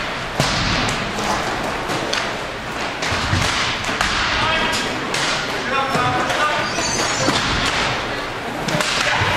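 Ice hockey play: skates scraping on the ice, with sticks and puck clacking and knocking throughout, a sharp crack about half a second in, and players calling out.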